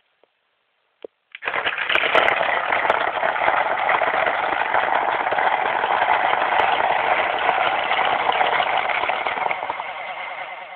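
Vlocity Jr electronic paintball loader running in a drop test: its motor spins and paintballs rattle as they are fed out through the feed neck. A click about a second in, then the running noise starts suddenly, holds steady and eases off near the end.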